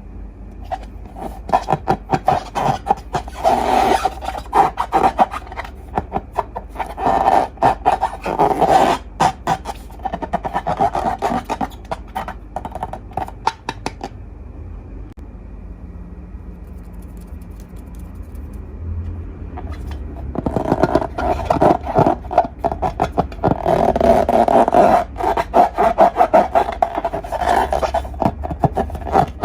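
Slime being worked by hand: dense sticky crackling and scraping in two busy spells, with a quieter pause in the middle.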